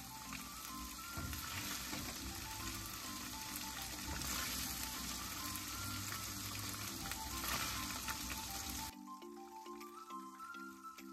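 Marinated chicken breast pieces frying in hot oil in a wok, a steady sizzle as they are turned with tongs. The sizzle cuts off abruptly about nine seconds in.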